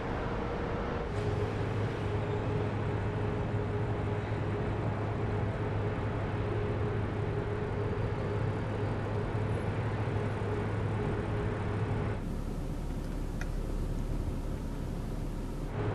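Audi A7 running at low speed, a steady low hum. About twelve seconds in the hum turns deeper and duller, as heard from inside the car's cabin.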